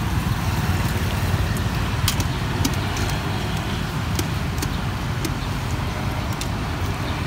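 Metal tongs clicking against a steel pot as cilok are turned to reheat them, a handful of light ticks over a steady low rumble.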